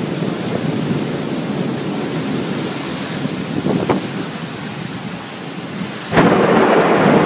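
Thunderstorm: steady rain with thunder. At about six seconds the sound jumps suddenly louder and stays loud.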